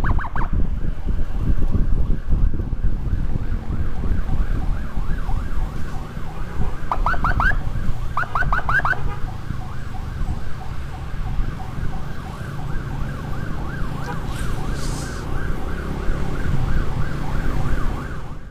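Electronic emergency siren in a fast, continuous warble, broken by a few quick rising whoops about seven and eight to nine seconds in, over the low rumble of wind and a moving motorcycle. It cuts off suddenly at the end.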